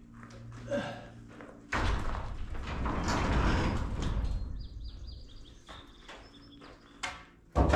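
A garage door being heaved open by hand, rumbling and rattling along its track for about three seconds, then a sharp knock and a louder bang near the end.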